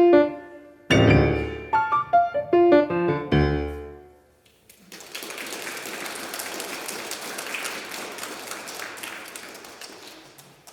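Acoustic piano playing the closing bars of a piece, ending on heavy low chords that ring out and fade about four seconds in. Then an audience applauds for about five seconds, dying down near the end.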